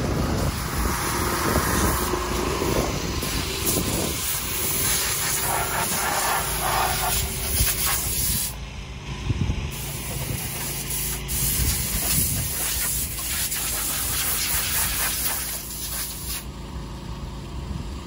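Compressed-air blow gun hissing as chaff and dust are blown off a combine harvester. The air cuts off briefly about halfway through and again near the end, over a steady low hum.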